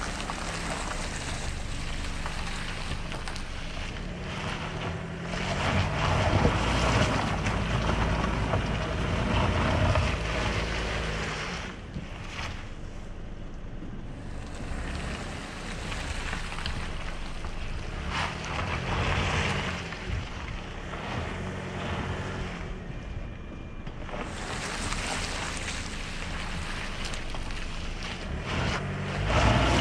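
2020 Toyota RAV4 TRD Off-Road's 2.5-litre four-cylinder engine revving up and down several times as the SUV crawls up a loose dirt slope. Wind buffets the microphone throughout.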